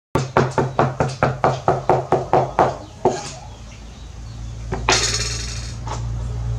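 Cleaver chopping rapidly on a round wooden chopping board: a quick, even run of about five strikes a second for a couple of seconds, then one single chop. Near the end comes a short scrape as the blade slides under the minced food to lift it off the board, over a low steady hum.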